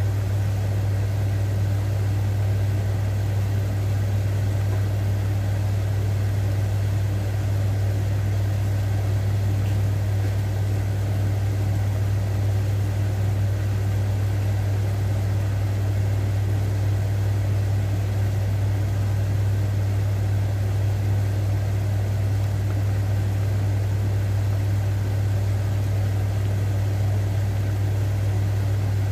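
A steady low hum, the loudest thing throughout, with a pot of water at a rolling boil bubbling beneath it as water spinach blanches.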